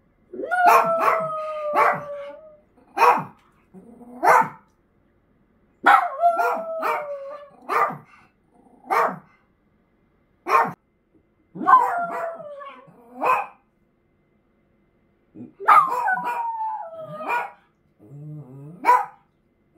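A 13-year-old wire-haired dachshund barking in about four bouts: sharp barks, some drawn out into falling, howl-like calls that last a second or more.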